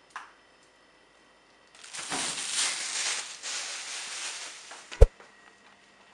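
A clear plastic bag crinkling and rustling for about three seconds as it is handled, then a single sharp knock about five seconds in.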